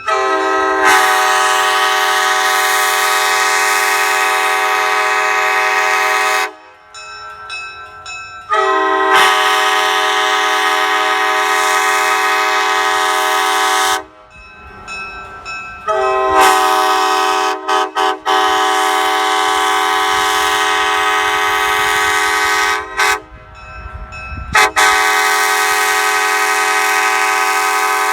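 Transition-era Nathan Airchime K5LA five-chime train horn sounding a steady multi-note chord in long blasts of about five to six seconds each, with short breaks of a couple of seconds between them; four blasts, the last still sounding at the end.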